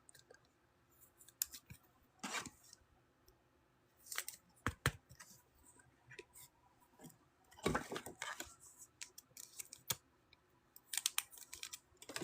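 Trading cards and pack wrappers being handled: scattered clicks, taps and short rustles, a few louder ones about two, four, eight and eleven seconds in.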